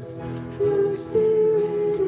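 Live worship song: a singer holding sustained notes over strummed acoustic guitar and electric guitar, with a new sung phrase coming in about half a second in.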